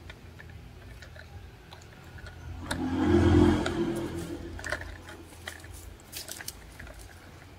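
Plastic toy trucks pushed and set down on dry, stony dirt: scattered small clicks, scrapes and crunches of toy wheels and bodies on grit and pebbles. A louder low rush swells and fades about three seconds in.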